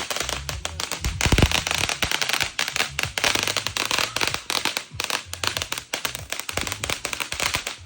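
Fireworks going off in a dense, rapid run of crackling bangs, loudest about a second in.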